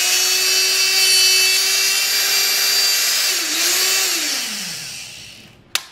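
Electric-over-hydraulic hole punch's motor and hydraulic pump running with a steady whine while it punches thin (about 1/16-inch) steel, dipping in pitch about three seconds in, then winding down after about four seconds. A sharp click near the end.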